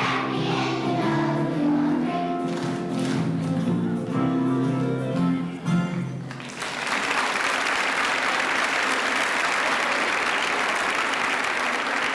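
A children's choir sings the final held notes of a song with instrumental accompaniment, ending about six and a half seconds in. Audience applause follows and continues to the end.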